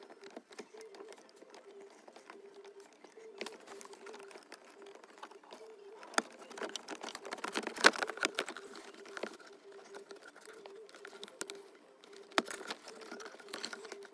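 Plastic clicks, scrapes and rattles of hands unclipping a VW Touareg's Kessy keyless-entry module and working its wiring-harness connectors loose under the dash, busiest in the middle with one sharp snap about eight seconds in.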